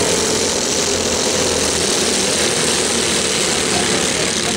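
A pack of racing go-kart engines running together as the field circles the track, a dense, steady drone with no single engine standing out.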